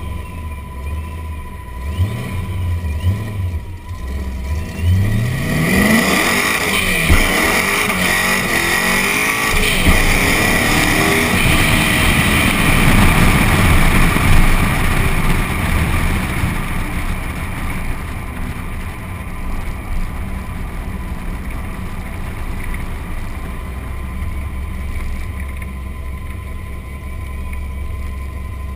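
Supercharged 426 cubic-inch stroker Hemi V8 of a 2009 Dodge Challenger SRT8, heard from low beside the rear wheel. It idles with a couple of short blips, then accelerates at part throttle about five seconds in, its note rising. It is loudest around the middle, then eases back to a steady low rumble.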